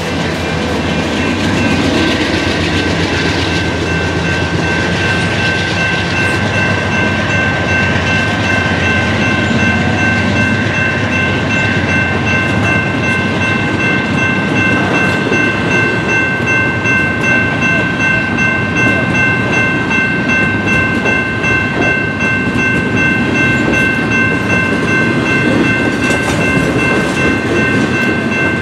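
A long double-stack intermodal container train rolling past, with a steady rumble and clatter of its wheels on the rails. The trailing GE C44-9W diesel locomotive goes by at the very start, as the sound swells. A steady high ringing tone runs over it.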